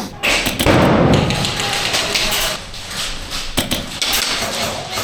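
Irregular knocks and sharp taps during an airsoft game, with a heavy thud from about half a second in.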